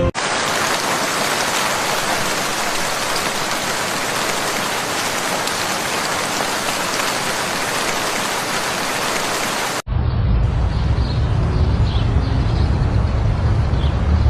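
Steady, even hiss of heavy rain that starts and stops abruptly after about ten seconds. It gives way to a low rumble with faint, short bird chirps.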